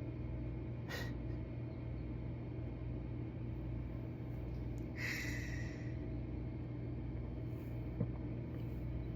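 Refrigerator compressor running with a steady low hum, with a short click about a second in and a brief hiss about five seconds in.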